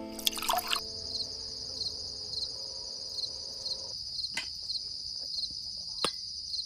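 Insects chirring in a steady, high-pitched trill with a fine regular pulse. The last notes of background music die away in the first few seconds, and a couple of faint clicks come later.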